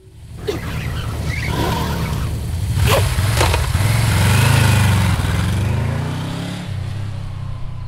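Sound effect of a motorcycle engine running and revving with a heavy low rumble. It swells to its loudest in the middle and fades toward the end. Two sharp cracks cut through it about three seconds in.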